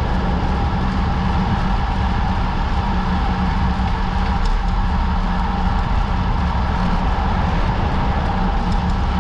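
Wind rushing over a bicycle-mounted action camera's microphone at about 45 km/h, with bicycle tyres humming on the asphalt: a steady, heavy low rush with a constant hum above it.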